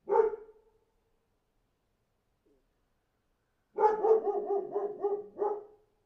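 A dog barking: one sharp bark at the start, then, after a pause of about three seconds, a quick run of barks lasting about two seconds.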